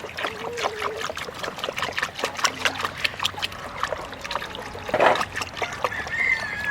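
Water splashing and trickling in many small irregular splashes, with one louder splash about five seconds in. A few short pitched calls sound near the start and near the end.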